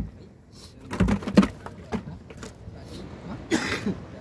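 Knocks and thuds of fish and a plastic bucket being handled in a wooden boat's fish hold: a sharp knock at the start and a cluster of knocks about a second in, with brief voices.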